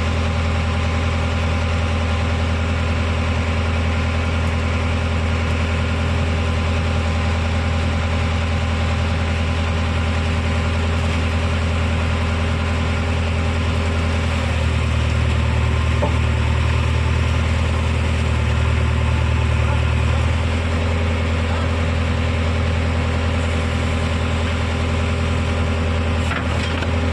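Diesel engine of heavy machinery running steadily at a low speed, a little louder from about 14 to 20 seconds in.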